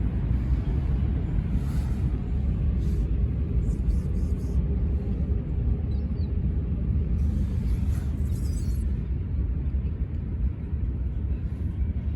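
Steady low rumble of outdoor background noise, with a few faint brief rustles or clicks.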